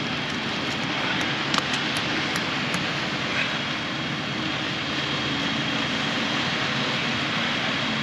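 Concrete truck's diesel engine running steadily, with a few light clicks between about one and three seconds in.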